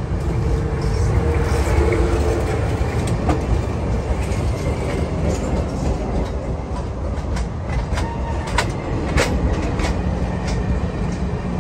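Cuyahoga Valley Scenic Railroad passenger train running on the rails: a steady low rumble with a few scattered sharp clicks from the wheels and track.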